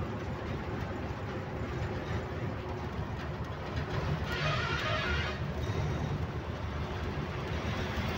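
Steady low rumble of a truck's engine and road noise, heard from inside the moving truck's cab. About four seconds in, a hiss lasts about a second.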